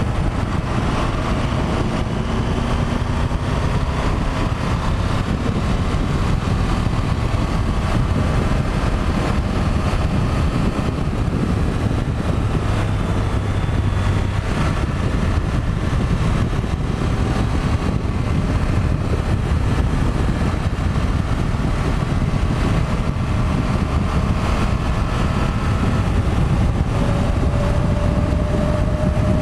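Triumph Tiger 1200's three-cylinder engine running steadily, its pitch drifting slowly up and down and rising near the end, over a constant rush of noise.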